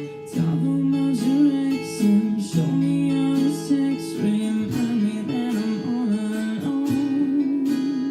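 Live band music: acoustic guitar strummed under a wavering melody line.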